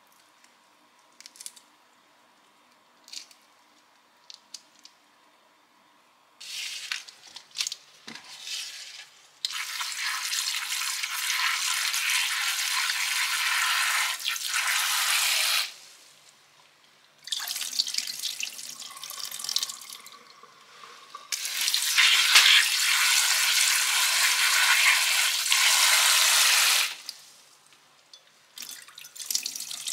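Tap water running into a stainless steel kitchen sink and splashing over hands rinsing food in a small glass bowl. It is turned on and off several times, with long spells of running water. Before that there are a few faint drips and small splashes.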